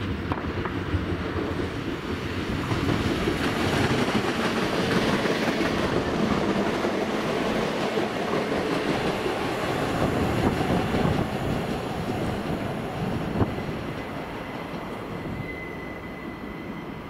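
A train running past on the rails: wheel and rail noise jumps up at the start, swells for several seconds and then slowly dies away. There is one sharp click about thirteen seconds in, and a thin, high wheel squeal near the end.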